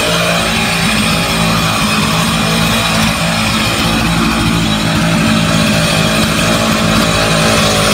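Stihl chainsaw mounted in an aluminium chainsaw mill, running at a steady high pitch under load while ripping lengthwise through a log. It cuts with a regular chain because the ripping chains were too tight to fit the bar.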